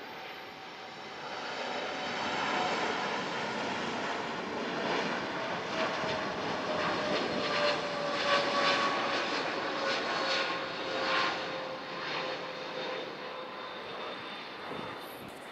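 Jet engines of a Boeing 787-9 Dreamliner passing by: a rushing roar that builds to a peak about eight to ten seconds in, then fades, with a whine sliding slowly down in pitch as the aircraft goes past.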